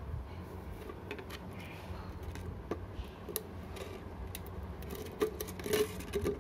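Handling noise: scattered light clicks and taps, more of them in the second half, over a steady low hum.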